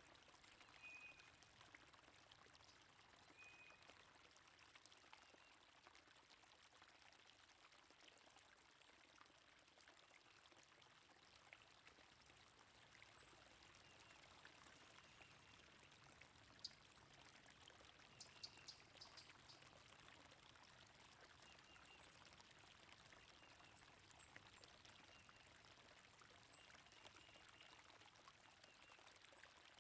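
Faint, steady flow of stream water, with short, high bird chirps dotted through it and a few small clicks in the middle.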